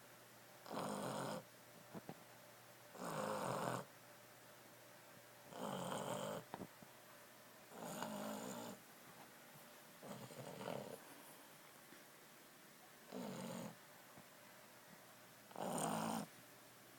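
Boston Terrier snoring in its sleep, one snore about every two to three seconds, seven in all.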